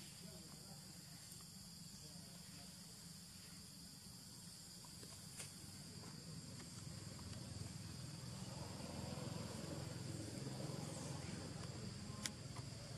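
Faint, steady high-pitched chirring of insects in the grass. A low rustling swells over the second half, and a single sharp click comes near the end.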